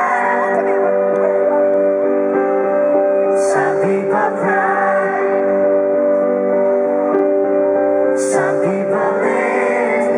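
Live pop ballad heard from the audience: a male lead vocal sung over sustained keyboard chords.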